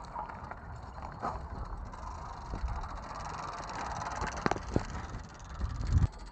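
Bicycle riding along a paved road: a steady low wind rumble on the microphone, with the bike rattling and giving scattered clicks and knocks, and a heavier thump about six seconds in.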